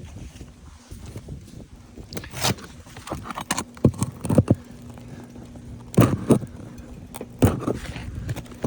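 Irregular knocks and scrapes of a hand tool prying under brittle asphalt roof shingles to break their seal and reach the nails, with a few sharper knocks about six and seven and a half seconds in.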